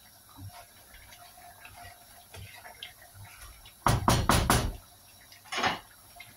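Wooden spatula stirring curry gravy in a metal wok-shaped pan, with faint light clatter, then knocking against the pan several times in quick succession about four seconds in and once more a second later.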